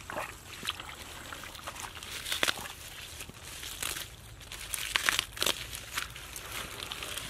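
Hands groping through wet mud and leafy water plants, with irregular squelches, crackles and rustling of stems and leaves.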